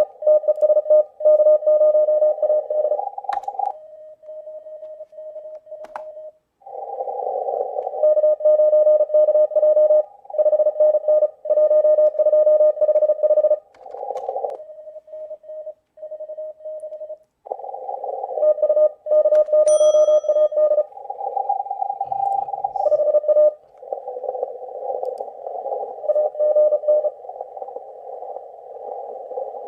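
Morse code (CW) signals from an amateur radio receiver: rapidly keyed tones around 600 Hz over narrow-band receiver hiss, played loud through laptop speakers. The signals are interrupted by a couple of quieter stretches of a single clean steady tone.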